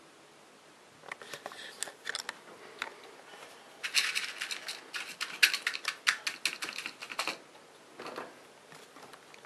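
Pet rodent clambering on the wire bars of its cage: rapid, irregular clicking and rattling of claws and metal bars, densest in a run of a few seconds through the middle, with scattered clicks before and after.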